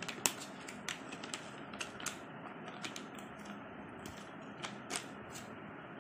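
Clear plastic accessory packet crinkling and clicking as it is handled and torn open: irregular sharp clicks and short rustles, the loudest just after the start and another about five seconds in.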